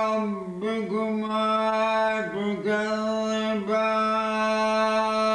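An elderly man chanting Quran recitation unaccompanied, holding long, steady notes with short wavering ornaments about half a second in and again around two and a half seconds in.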